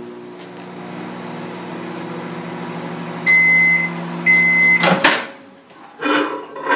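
Countertop microwave oven running with a steady hum, then beeping twice about three seconds in to signal the end of its cycle. The hum stops and the door is popped open with a click near the end, followed by brief handling noise.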